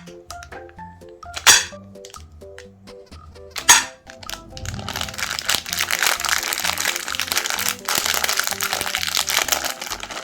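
Meat grinder crushing hard-shelled M&M candies: three loud single cracks, then from about halfway in a continuous dense crunching as the candies are ground. Background music plays throughout.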